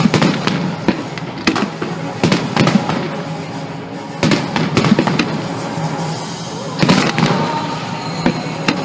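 Fireworks display: shells bursting in sharp bangs every second or two, with crackling between them, over music played along with the show.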